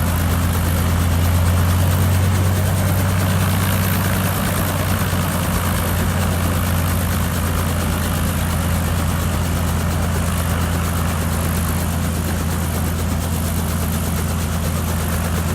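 Helicopter running steadily on the ground, a constant low engine and rotor drone with a hiss over it.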